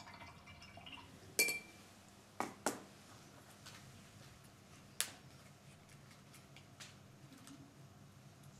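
A stirring rod clinks against a glass jar four times: a sharp, briefly ringing clink about a second and a half in, two lighter ones around the three-second mark, and one more at five seconds.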